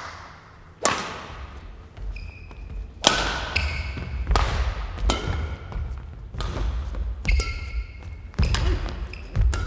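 Singles badminton rally echoing in a large sports hall: sharp racket strikes on the shuttlecock every second or so, starting with the serve about a second in, with court shoes squeaking on the floor and footfall thumps between shots.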